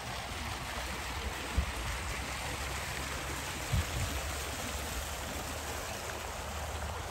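Steady rushing of running water, with two short low thumps about one and a half seconds and nearly four seconds in.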